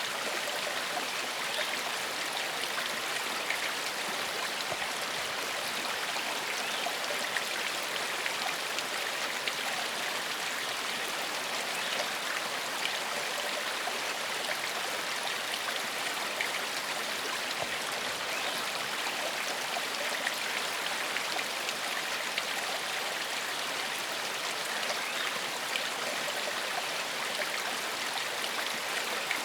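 Gentle forest stream flowing steadily over stones, an even rush of water with small splashes and trickles through it.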